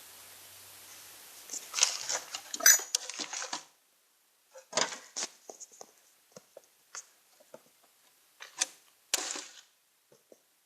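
Metal tools and parts clinking and rattling as they are handled: a dense clatter over the first few seconds, then scattered separate clicks and knocks.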